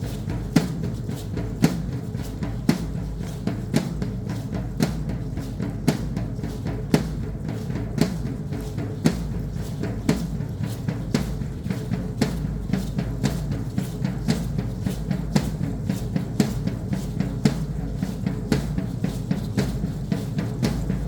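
Drum beating a steady dance rhythm for a traditional Mexican danza, about two strokes a second, over a continuous low rumble.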